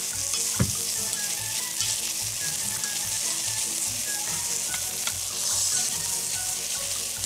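Quinoa sizzling in a hot pot as it is stirred with a spoon, with a few sharp clicks of the spoon against the pot.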